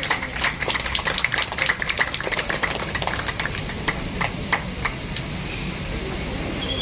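Audience clapping: many irregular claps that thin out and die away about five seconds in, over a steady low background rumble.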